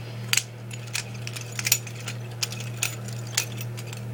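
Butterfly knife being flipped, its metal handles and blade clicking and clinking against each other in irregular taps, with a few louder clacks. A steady low hum runs underneath.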